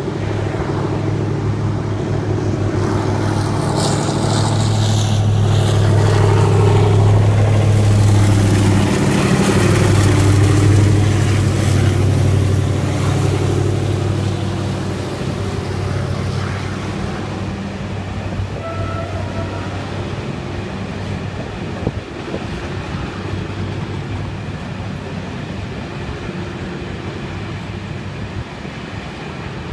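TCDD DE 24335 diesel-electric locomotive hauling a freight train, its engine running with a steady low drone. It grows louder over the first several seconds and then slowly fades as the locomotive goes past.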